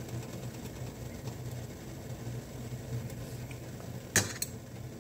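A steady low machine hum, like a kitchen appliance or fan running. About four seconds in, a utensil knocks twice quickly against a pot.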